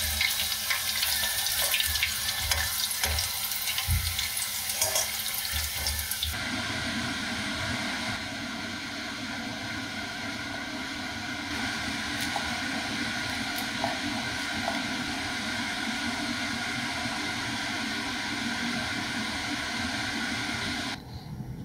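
Freshly double-fried Korean fried chicken crackling on a wire rack, a dense hiss of tiny pops. About six seconds in it gives way to a steady rushing noise.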